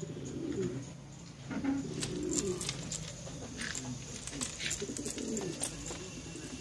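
Syrian (Shami) domestic pigeons cooing, a string of low, wavering, repeated coos, with a few short clicks over the top.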